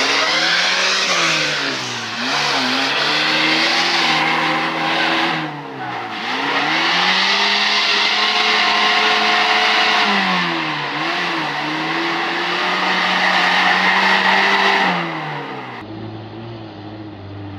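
Off-road 4x4's engine revving hard as its wheels spin and churn through deep mud, the revs sagging and climbing back up about three times. Near the end it cuts to a quieter, steadier engine note.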